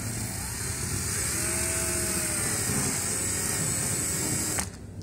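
Cordless drill spinning a wire wheel brush, scrubbing against a carpeted car floor mat; a steady whirring with a faintly wavering pitch that stops abruptly near the end.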